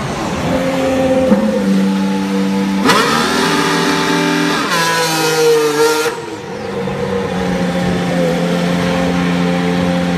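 Formula 1 car's V6 turbo-hybrid engine running at low speed in the pit lane. It is loudest as the car passes close by about three to six seconds in, its pitch stepping and rising, then it settles to a steadier drone.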